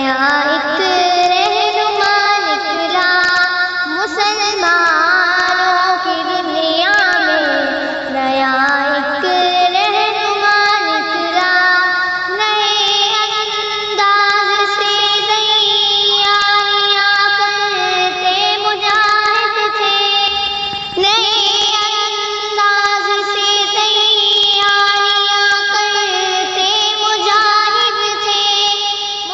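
A naat, an Islamic devotional song, sung by a high voice in long, ornamented phrases that slide between notes.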